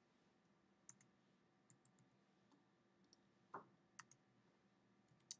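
Faint, scattered clicks from a computer's pointing device while it adjusts an image, about six sharp clicks plus one duller knock midway, over a faint room hum.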